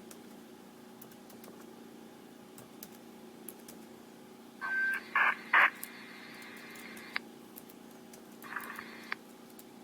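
Police scanner radio between transmissions: a steady low hum and faint hiss, with a brief radio key-up about halfway through, a short tone and crackling squelch bursts that cut off with a click. Another short crackle comes near the end.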